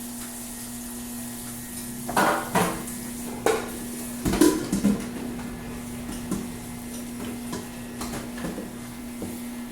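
Kitchen pots, dishes and utensils being handled: a cluster of knocks and clatters between about two and five seconds in, then a few lighter taps, over a steady low hum.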